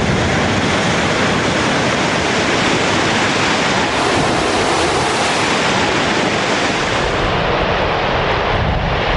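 Blasted limestone collapsing down a quarry face: a loud, steady rushing rumble of sliding and tumbling rock, its hiss thinning near the end.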